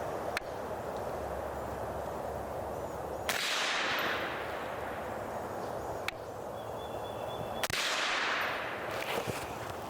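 Rifle shots from a SIG Tread 716i semi-automatic rifle in .308 Winchester firing 175 grain ammunition: two loud reports about four seconds apart, each with a long echo fading away over about a second, with a few smaller sharp cracks between them.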